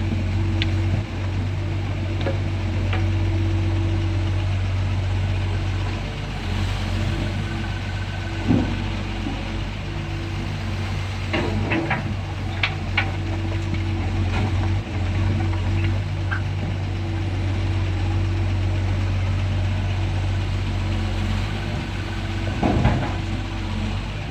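Doosan DX140 excavator's diesel engine running steadily at work, with a few short knocks and clanks, a cluster of them about halfway through and one more near the end.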